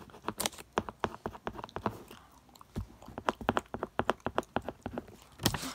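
Colored pencil scratching on paper in quick, irregular strokes while colouring in a small area, with a louder stroke near the end.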